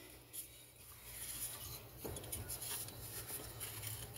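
Faint rubbing and light metallic clicks of hands working the metal recoil-starter assembly of a vintage Homelite chainsaw, over a steady low hum.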